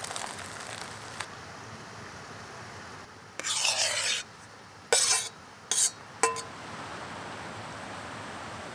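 Food tipped onto a metal camp plate: loose muesli pouring from a plastic bag, then chopped kiwi fruit slid out of a bowl with a rasping scrape lasting under a second. Two short scrapes follow, then a light metallic clink with a brief ring.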